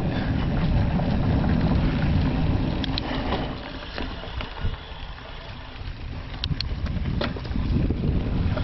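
Mountain bike rolling along a dirt double-track trail: a steady rumble of tyres and wind on the microphone, with a few sharp clicks and rattles from the bike. It eases off for a couple of seconds past the middle.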